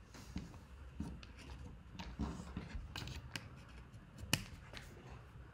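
Faint scattered clicks and taps of hands working a computer, with one sharper click a little over four seconds in.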